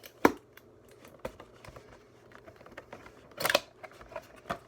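Handling noises from a boxed Rubik's cube and its packaging: a few sharp clicks and taps, with a brief crinkling rustle about three and a half seconds in.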